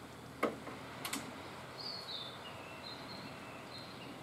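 A sharp knock about half a second in and two lighter clicks about a second in, from work on the wooden concrete formwork and its steel form ties, followed by faint, short high bird chirps over steady outdoor background noise.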